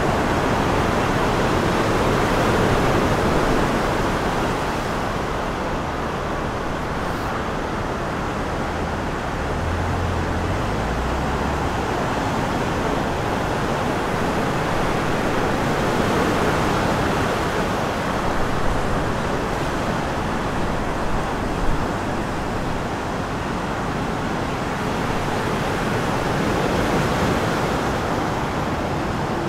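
Steady rush of small sea waves breaking, with a low wind rumble on the microphone.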